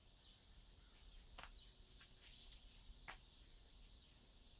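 Near silence: a faint steady high hiss of room tone, with two soft clicks well apart.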